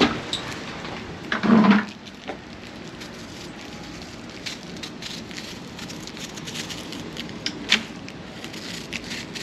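Wood fire crackling under a cooking pot, with scattered sharp pops over a steady hiss. One brief louder sound stands out about a second and a half in.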